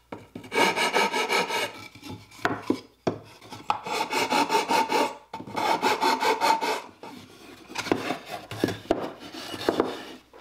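Flat metal file rasping back and forth across the wooden fingers of a box joint, in several runs of quick strokes with short pauses between. It is very light filing to ease a joint that fits too snugly.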